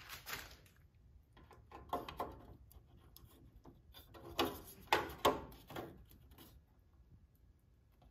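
Headlight trim ring being handled and pressed into the grille around a Jeep Wrangler TJ headlight: scattered light clicks and knocks, a few about two seconds in and a cluster between four and six seconds in, then quiet.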